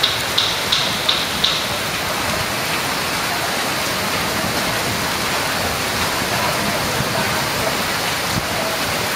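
Monsoon rain falling steadily, a dense even hiss. In the first second and a half a run of short high chirps repeats about three times a second, then stops.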